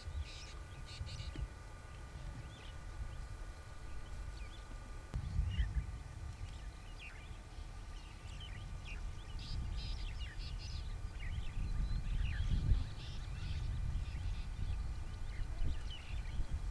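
Wild field ambience: scattered short bird chirps over a low rumbling noise that swells from about five seconds in, with a few faint steady high tones in the background.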